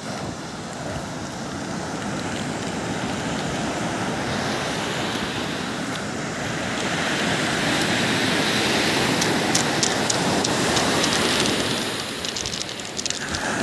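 Sea surf breaking and washing up a sandy beach, a steady rushing noise that grows louder in the second half and eases near the end.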